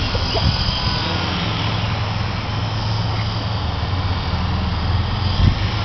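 Electric RC helicopter with a brushed motor, its motor and rotor running in a steady drone in flight, with a brief low bump near the end.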